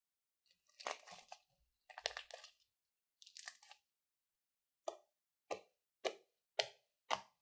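Slime being stretched and squished by hand, crackling in three drawn-out bursts, then five short, sharp pops about half a second apart as fingertips press into it.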